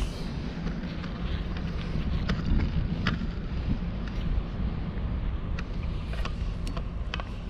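Wind buffeting the action-camera microphone as a steady low rumble, with scattered light clicks and taps from fishing tackle being handled: the rod, reel and tackle box.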